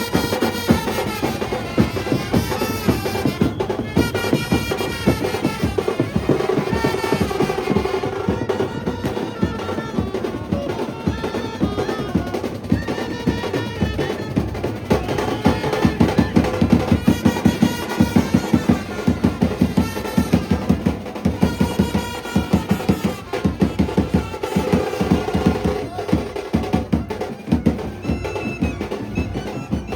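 Indian brass band playing: brass horns carry a melody over fast, dense drumming, and the drums grow heavier about halfway through.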